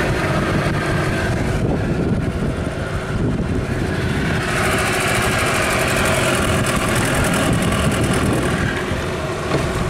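A small motorboat's engine running steadily as the boat moves through the water, with a brighter hiss rising for a few seconds in the middle.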